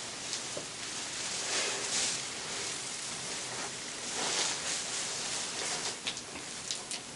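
Soft rustling of clothing as a person moves in close, over a steady hiss, then a few light clicks and taps of hands handling a cardboard shoebox near the end.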